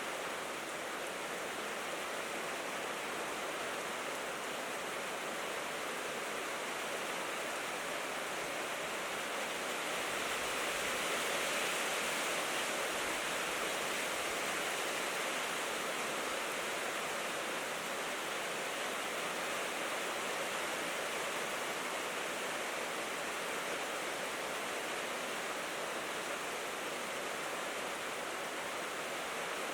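Steady rain falling on a tin roof, an even hiss that grows a little heavier about a third of the way in, then eases back.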